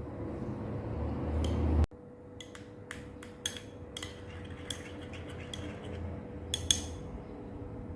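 Light clinks and taps of utensils against dishes or glassware, a dozen or so short knocks spread over about five seconds, over a faint steady hum. Before them, a low rumble grows louder and cuts off suddenly a little under two seconds in.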